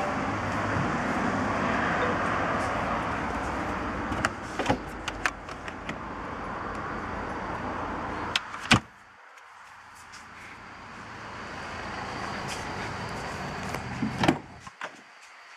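Handling noises on a BMW X5's body: scattered clicks, then one loud thump a little past halfway as a boot panel over the spare wheel is shut, and a cluster of latch clicks and a knock near the end at a door. A steady rushing background runs under the first half and drops away after the thump.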